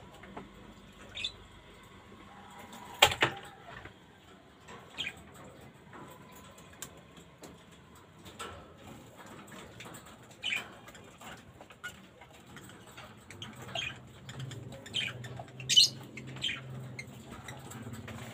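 African lovebirds giving short high chirps every few seconds, with a sharp knock about three seconds in and a faint low hum in the second half.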